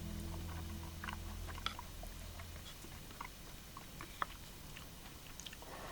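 The last chord of acoustic guitar background music dies away over the first few seconds. Faint scattered crackles and small clicks follow, with two sharper ticks.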